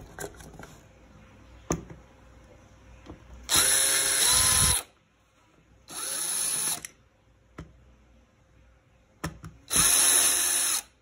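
Cordless drill running in three short bursts of about a second each, backing out the small casing screws of a plastic three-pin mains plug.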